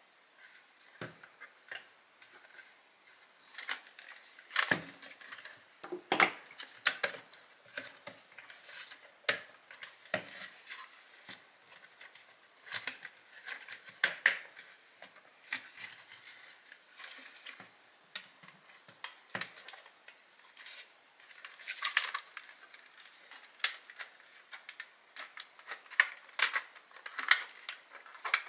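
Irregular clicks, taps and light knocks of small hard parts being handled, coming in uneven clusters with short pauses between them.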